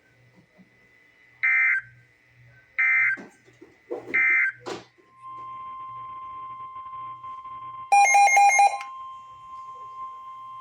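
Emergency Alert System digital data tones: three short warbling bursts a little over a second apart, the end-of-message signal that closes the tornado warning. About five seconds in, a steady single-pitched alert tone starts and holds, opening the next alert, with a loud burst of rapid beeps about eight seconds in.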